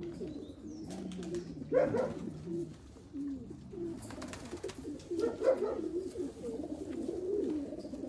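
Racing pigeons cooing in their loft: low, wavering coos from several birds overlapping, with louder calls about two seconds in and again past the middle.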